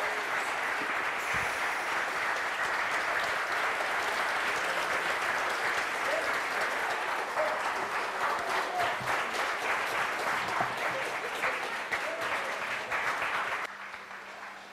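Large audience applauding, a dense patter of many hands clapping that drops off sharply near the end.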